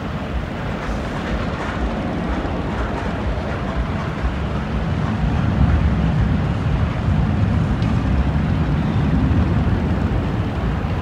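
Mine train roller coaster's train rumbling along its track, a steady low rumble that grows louder about halfway through.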